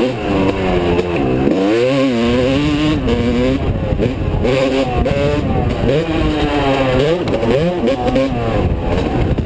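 Yamaha YZ250 two-stroke motocross bike's engine, heard from the rider's helmet, revving hard and rising and falling in pitch again and again as the throttle is opened and closed.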